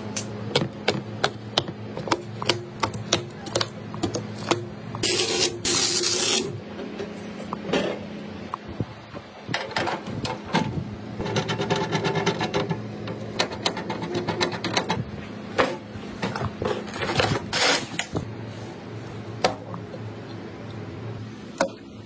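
Hands working on PC parts: plastic protective film crackling and tearing as it is peeled from RAM modules, then a screwdriver driving small screws into a motherboard. The result is a run of small clicks and taps with a couple of longer rasping bursts, over a steady low hum.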